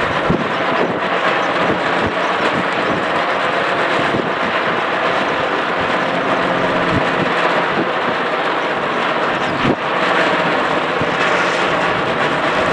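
Strong wind of about 6 to 11 m/s rushing over the microphone: a loud, steady noise with a faint drone under it.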